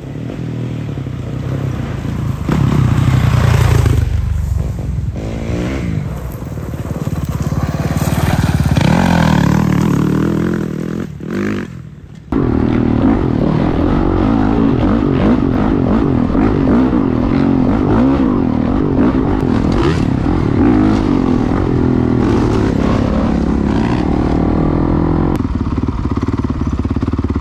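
Dirt bike engine heard from on the bike while riding a dusty forest trail, its pitch rising and falling with the throttle and gear changes. About twelve seconds in it breaks off abruptly into a steadier, louder engine drone at speed.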